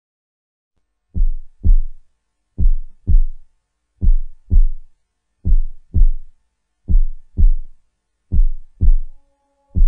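Heartbeat sound effect: slow, deep double thumps (lub-dub), a pair about every one and a half seconds, starting about a second in.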